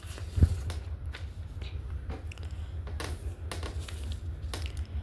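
Scattered short clicks and taps, one a little louder about half a second in, over a steady low hum.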